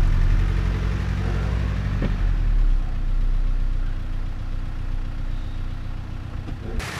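Suzuki Jimny's engine idling steadily, heard through a camera on its bonnet; the deep hum eases and gets a little rougher about two and a half seconds in. The sound cuts off abruptly just before the end.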